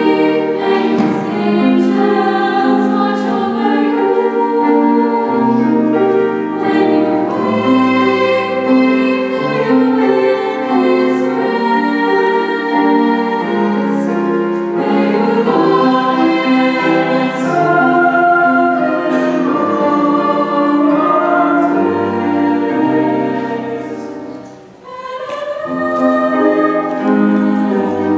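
A mixed chamber choir singing a slow sacred benediction song in sustained chords, with a brief pause near the end before the singing resumes.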